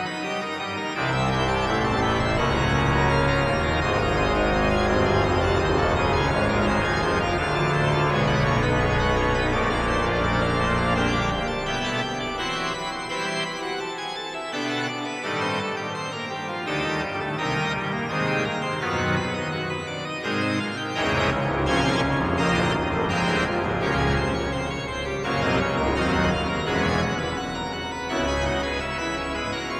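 Organ music: full sustained chords over a deep pedal bass. The pedal bass drops out for a few seconds about halfway through, then comes back.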